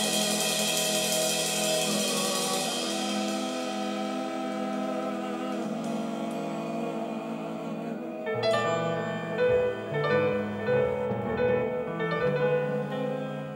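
Live jazz on keyboards: held synthesizer-like chords that slowly fade, then, about eight seconds in, a run of separately struck piano-like notes over low bass notes.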